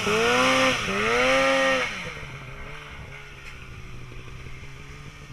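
Snowmobile engine revving in two rising-and-falling surges, with a hiss of spraying snow, then easing off about two seconds in to a much quieter steady running.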